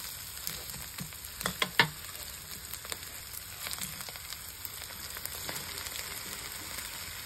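Chopped chilies sizzling steadily in hot oil in a steel wok, with a few sharp scrapes and knocks of a metal spatula against the pan about one and a half seconds in.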